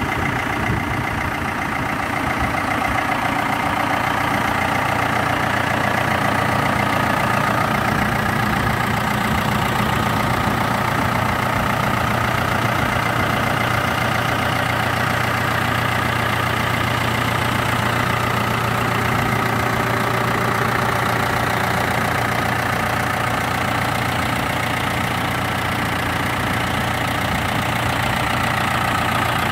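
Ford 7600 tractor's four-cylinder diesel engine idling steadily.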